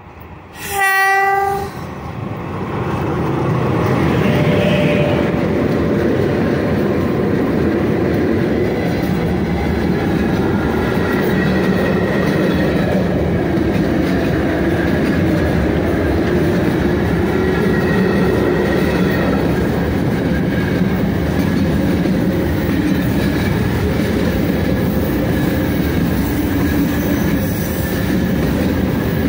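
A 3ES5K "Ermak" electric locomotive sounds one short horn blast on a single steady pitch about a second in. Then the double freight train passes close by, and its freight wagons' wheels on the rails make a loud, steady rumble.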